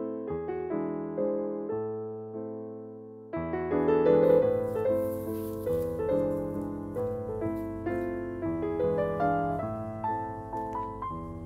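Background piano music: a slow, gentle run of single notes and chords, each note fading away, with a new, louder phrase coming in about three seconds in.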